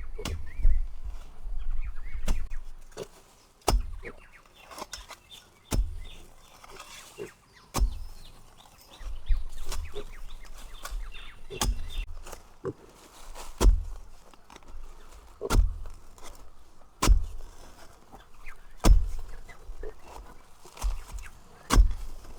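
A series of sharp knocks, each with a dull thud, repeating about every two seconds.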